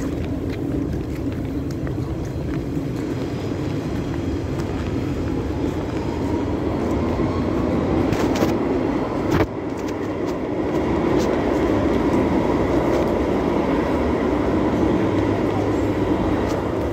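Light rail tram running close by: a loud, steady rumble that swells in the second half, with a faint whine joining about halfway through. A single knock about nine seconds in.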